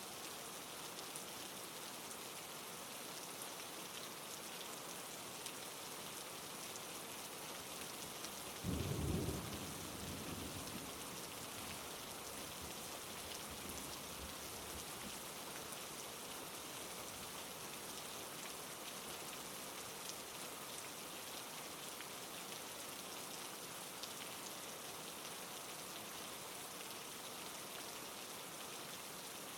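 Steady rain falling, with one low rumble of thunder about nine seconds in that breaks sharply and fades out over several seconds.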